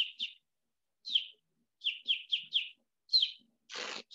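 High, chick-like peeping: short chirps that each fall in pitch, in quick runs of about four a second with short pauses between runs. A brief burst of noise comes near the end.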